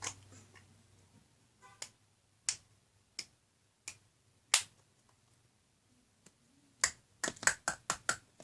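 Sharp clicks and taps of plastic Play-Doh molds and tools being handled: single clicks every half second to a second, then a quick run of about six clicks near the end.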